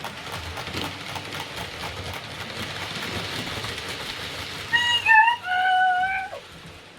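Train sound effect: a steady rushing noise with faint clicks, then a two-note train horn about five seconds in, a short higher note followed by a longer lower one.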